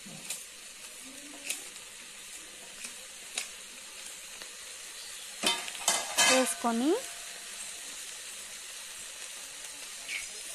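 Rice and moong dal sizzling as they fry in ghee in a pressure-cooker pot, stirred with a slotted metal spatula that scrapes and clicks against the pot. A cluster of louder clicks comes about halfway through.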